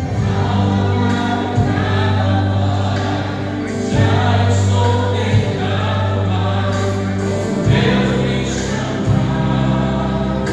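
Church worship singers singing a gospel hymn together over a steady instrumental accompaniment with sustained low bass notes.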